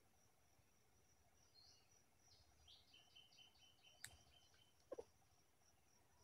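Faint forest birdsong: thin high chirps and a quick run of short repeated notes from small birds. A single sharp click comes about four seconds in, and a short low falling sound just after five seconds.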